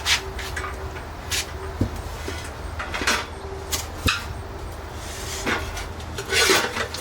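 Chunks of firewood being handled and moved: irregular knocks and scrapes of wood against wood, about eight of them, over a steady low hum.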